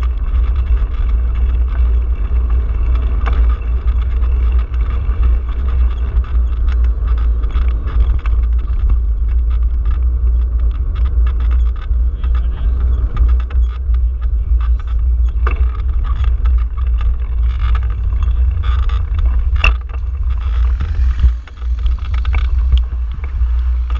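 Wind buffeting the microphone of a handlebar-mounted action camera on a moving bicycle: a steady, loud low rumble with tyre and road noise. Short knocks and rattles come more often near the end.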